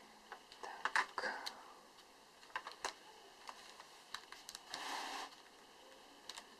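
Hand crocheting: scattered light clicks of a crochet hook working thread, with a brief rustle of thread and lace about five seconds in.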